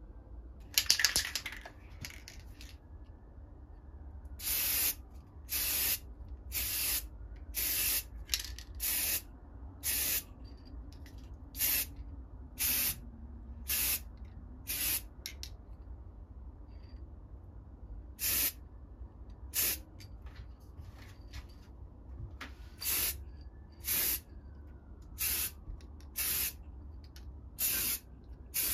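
Aerosol spray-paint can spraying in about twenty short hissing bursts of roughly half a second each, coating a metal oil lantern, with a pause of a few seconds past the middle. A brief loud rattle comes about a second in, before the spraying starts.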